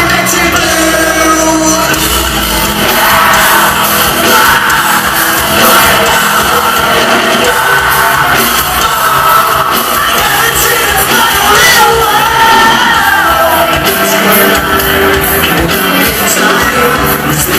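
Live rock band playing loud in a large hall, heavily distorted as recorded, with a lead singer singing and yelling over guitars and drums.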